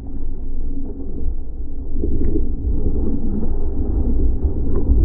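Muffled, steady rush of water and wind on a board-mounted camera as a surfboard rides along a breaking wave face.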